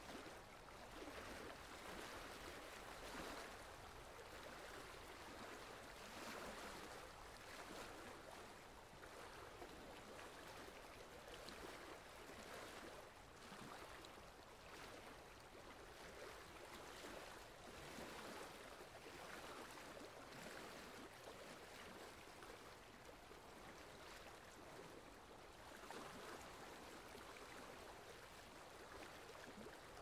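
Faint, steady rushing of a waterfall, swelling gently now and then.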